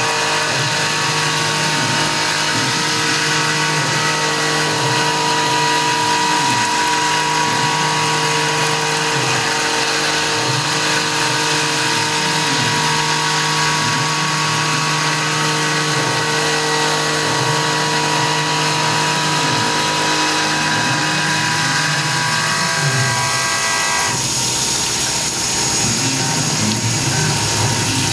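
Tormach PCNC 1100 CNC mill cutting a pocket in aluminum with an end mill under flood coolant: a steady whine of several tones over the hiss of the cut and the coolant spray. About 24 seconds in, some of the tones drop out and the pitch pattern changes.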